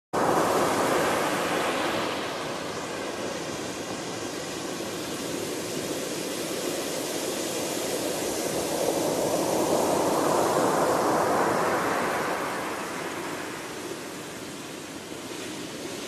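Ocean surf breaking on a beach: a wave crashes right at the start, another swells and washes in around the middle, and the rush eases near the end.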